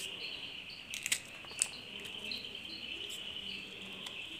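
A kitchen knife and fingers working an okra pod over a steel plate, giving a few small sharp clicks about a second in and again shortly after. Under them runs a faint, steady, high-pitched chirring.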